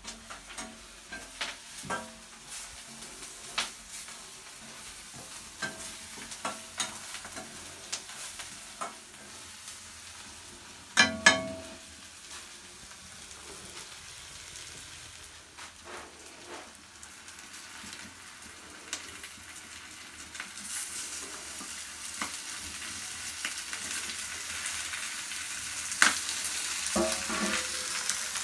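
Food frying in a pan over a fire, sizzling, with scattered knocks of a utensil against the pan and a louder clatter twice. The sizzle grows louder about two-thirds of the way through.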